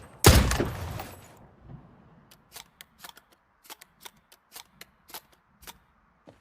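A single hunting rifle shot with a decaying echo lasting about a second, followed by a string of faint, irregular light clicks.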